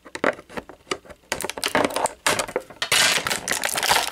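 Plastic toy parts and packaging being handled: quick irregular clicks and crinkles, sparse at first and much busier after the first second.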